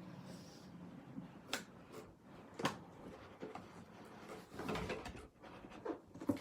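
Cardboard doll box and its packaging being handled and opened by hand: a few sharp clicks and taps, with a short scraping rustle a little past the middle.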